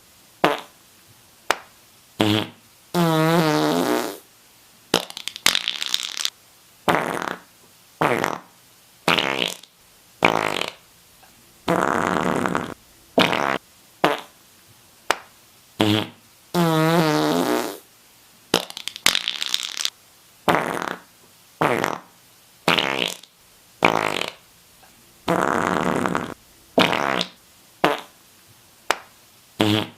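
A run of fart sound effects, about two dozen in all with short gaps between them. Quick short pops mix with longer drawn-out ones, some of which buzz with a pitch that falls.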